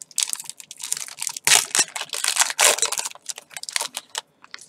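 Foil trading-card booster pack being torn open and crinkled by hand: a run of crackling, rustling noises. The loudest rustles come about a second and a half and two and a half seconds in.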